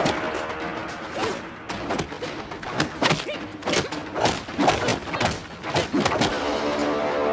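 Film fight sound effects: a rapid, irregular run of a dozen or so sharp punches and body blows landing, over dramatic background music.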